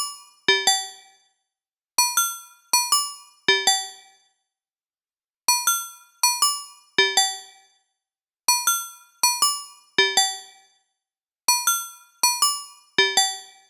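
Phone ringtone: a short electronic melody of bright, bell-like keyboard notes that each start sharply and die away quickly. The phrase of about six notes repeats about every three seconds, with a short silence between repeats.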